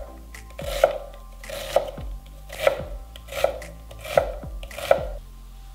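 Kitchen knife dicing a red onion on a wooden cutting board: six slow, even strokes about one every 0.8 s, each a short slicing hiss ending in a knock on the board.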